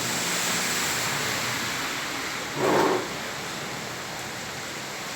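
Heavy rain falling steadily as an even hiss, with a short louder whoosh about halfway through.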